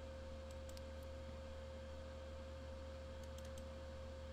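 Steady electrical hum of a quiet recording setup, with a few faint computer mouse and keyboard clicks: two about half a second in and three in quick succession near the end.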